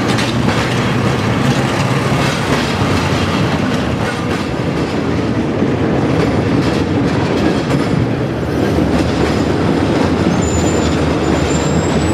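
Streetcar running along street track, heard from on board: a steady rumble of steel wheels on the rails, with a faint high wheel squeal that starts about ten seconds in.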